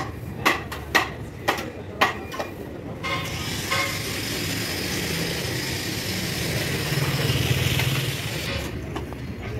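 Sharp knocks about twice a second for the first two seconds, then a motor vehicle's engine running with a broad hiss that swells, is loudest near the end, and drops away suddenly.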